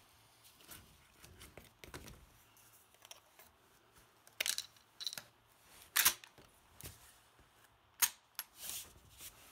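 Mossberg 535 pump-action shotgun being loaded with a 3-inch shell and its action worked by hand: a series of sharp metallic clicks and clacks, the loudest about six seconds in.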